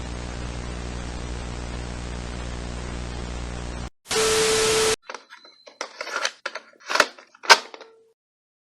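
Electronic static with a low hum that cuts off abruptly, followed by a loud burst of noise carrying a steady tone for about a second, then a stretch of irregular crackles and clicks with two sharp pops near the end: distorted-signal glitch effects.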